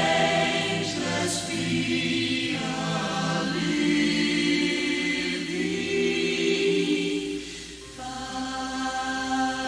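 Choir singing slow, long held notes with no clear words, dipping briefly a little before the end.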